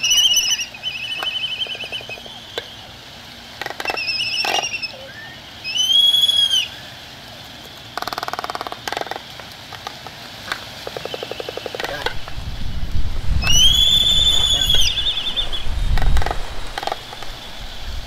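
Waved albatrosses courting: sharp clicks and rapid clattering runs from their bills as they fence, with several arched, whistled calls, the longest and loudest past halfway. A low rumble comes in during the second half.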